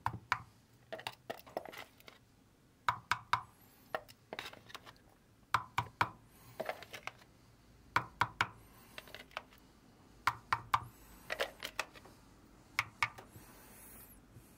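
A painting knife scooping thick paint out of a plastic tub and dabbing it onto a wooden board. There are short clusters of sharp knocks and scrapes every second or two, with a few high squeaks.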